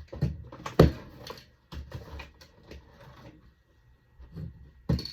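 Household items being rummaged through and handled: an irregular run of knocks, rattles and clatter, the loudest about a second in.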